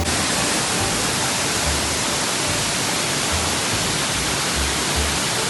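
Waterfall rushing: a loud, steady hiss of falling water that starts and stops abruptly.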